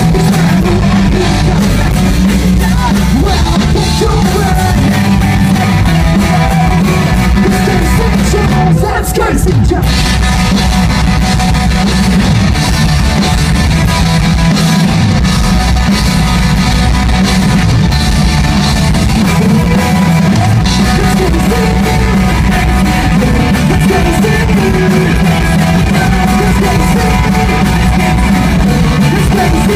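A live rock band playing electric guitars, bass guitar and a drum kit, with vocals, heard through the festival PA. There is a brief break in the playing about nine seconds in.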